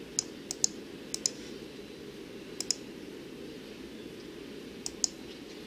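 Sharp clicks of a computer mouse and keyboard used to copy and paste text, mostly in quick pairs, about five pairs spread through the few seconds. A low steady hum runs underneath.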